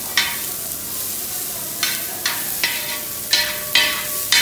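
A metal spatula scrapes across the bottom of a wide metal uruli, stirring chopped shallots frying in coconut oil with mustard seeds, over a steady sizzle. After one stroke at the start and a pause, the scrapes come about every half second through the second half.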